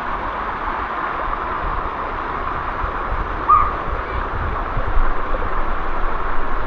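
Steady rush of water from a waterfall, with a brief high chirp about halfway through.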